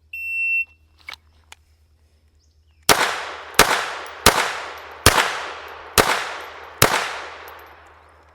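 A shot timer gives one short, high beep. About three seconds later a handgun fires six shots at a steady pace, a little under a second apart, each followed by a fading echo: a six-round Bill Drill drawn from the holster.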